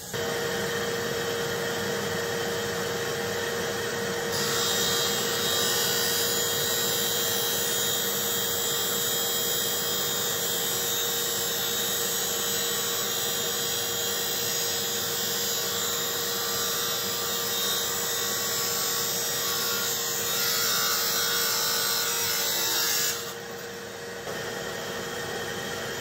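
Abrasive cut-off wheel of a clubmaker's shaft-cutting machine running and grinding through a steel golf club shaft: a steady grinding hiss over a steady motor hum. The grinding eases off briefly near the end, then picks up again, with a dust extractor running along with it.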